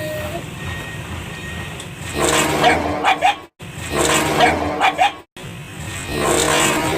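Dog barking repeatedly over background music, its barks starting about two seconds in and coming in short runs broken by abrupt cuts.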